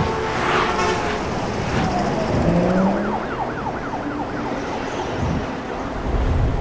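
City traffic noise with car horns sounding in the first second, then a siren yelping, its pitch swinging up and down about four times a second, through the middle.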